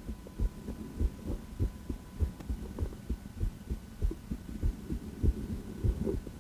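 A woman's heartbeat heard by auscultation against the chest: regular low thumps repeating steadily, with a faint steady hum underneath.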